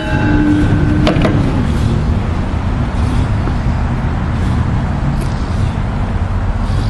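Billy Goat KV600 leaf vacuum's Briggs & Stratton engine running steadily, with a brief click about a second in.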